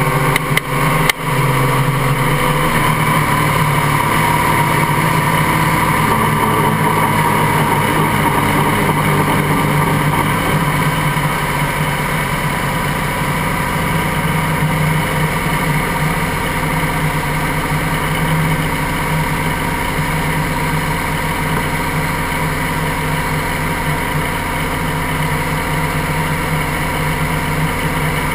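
Helicopter turbine or piston engine and main rotor running steadily on the ground, heard close up from the fuselage. There is a short sharp click about a second in.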